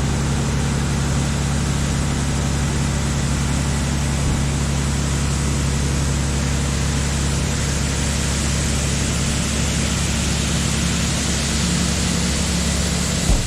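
Sampo 680 combine harvester running steadily, a constant engine and machinery drone with a low hum underneath.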